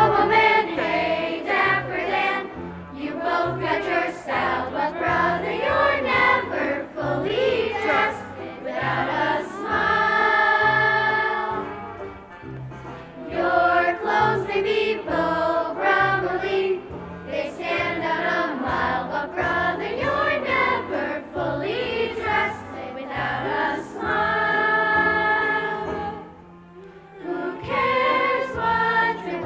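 A chorus singing a show tune over a steady instrumental accompaniment, with long held notes now and then and a brief drop in level a few seconds before the end.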